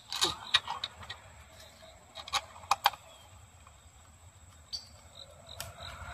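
Light, sharp clicks and taps of metal and plastic as an ignition coil's retaining bolt is threaded in by hand: a quick cluster in the first second, a few more around the middle and one or two near the end. A faint high chirping repeats in the background.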